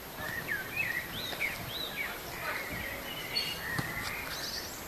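Small birds calling and singing: a run of short chirps and whistled notes that glide up and down in pitch, over steady outdoor background noise.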